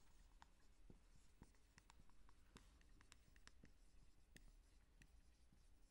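Faint marker pen writing on a whiteboard: scattered short ticks and scratchy strokes as the letters are formed.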